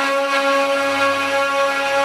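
CNC wood-carving router's spindle motor running with a steady whine at a constant pitch.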